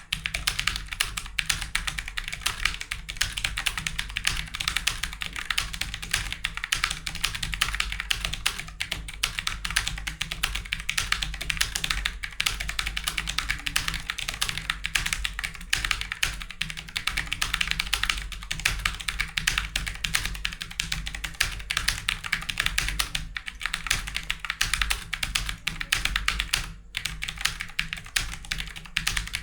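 Fast, continuous typing on a computer keyboard, a dense stream of key clicks at around 85 words per minute, with a brief pause near the end. A steady low hum runs underneath.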